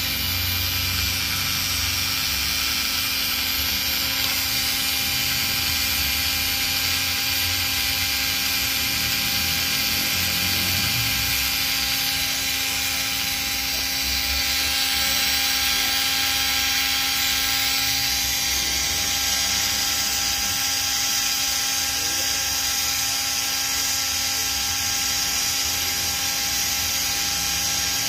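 The small electric motor of a model-car tyre truing lathe running at a steady speed, spinning the axle with its rubber wheels: an even whine with a low hum beneath.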